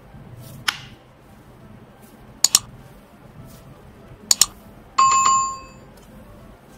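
Subscribe-animation sound effects: a short sharp hit, then two quick double mouse clicks, then a single bell ding, the loudest sound, ringing out for about a second.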